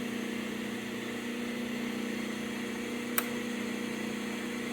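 Snap-on EEBR300A brake lathe's electric motor running with a steady hum. A single sharp click comes about three seconds in.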